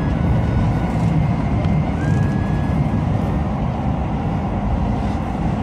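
Keio Line electric commuter train running through a tunnel, heard from the front of the train: a steady low rumble of wheels on rails, with a few faint, brief high tones over it.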